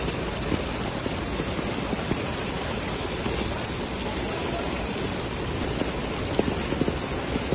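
Heavy rain pouring onto a flooded street: a steady, loud hiss with a few sharper drops or splashes standing out near the end.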